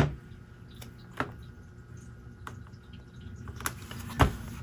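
A few soft taps and knocks of hands handling and pressing down paper on a cutting mat, the loudest about four seconds in, over a faint steady background hum.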